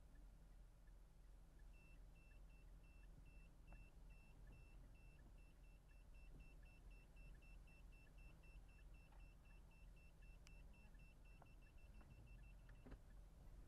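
A car's parking sensor beeping: short, high, thin electronic beeps about four times a second. They quicken near the end and then stop, the sign of the car closing on something just ahead.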